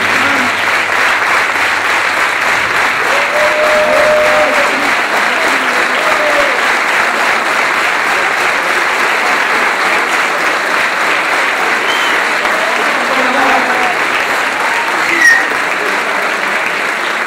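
Theatre audience applauding steadily, with a few voices among the clapping. A short high sound stands out above the applause near the end.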